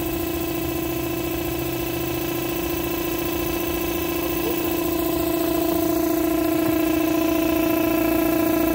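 Electric air blower running with a steady, high-pitched hum, pushing air up through the sand in a hot tub to fluidize it. It grows a little louder about six seconds in.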